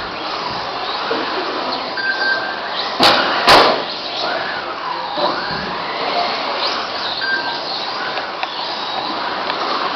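Radio-controlled touring cars racing: a steady mix of motor whine and tyre noise, with whines rising and falling in pitch as cars pass. Two sharp knocks come close together about three seconds in.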